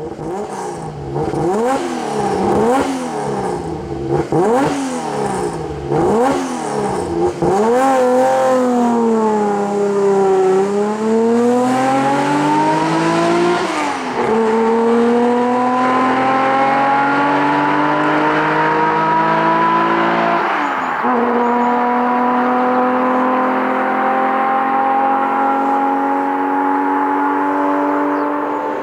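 Nissan Skyline GT-R (KPGC10) S20 twin-cam straight-six through an RS Start / Power Craft exhaust. It gives a series of quick throttle blips, then pulls away under acceleration, the pitch climbing steadily. Two upshifts drop the pitch, one about midway and one about two thirds of the way in.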